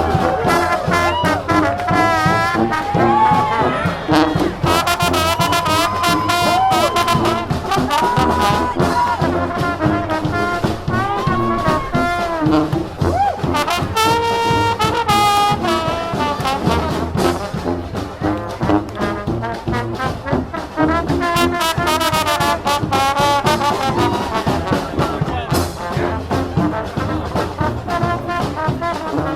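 Brass street marching band playing live, with trombones and trumpets carrying a melody over steady drum beats.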